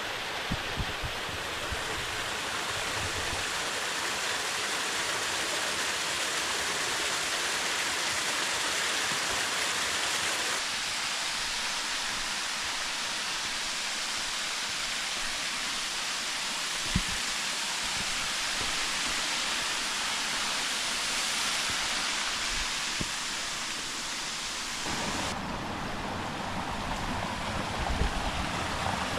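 Steady rush of running water, an even hiss whose tone shifts abruptly about ten and twenty-five seconds in, with a single sharp knock about halfway through.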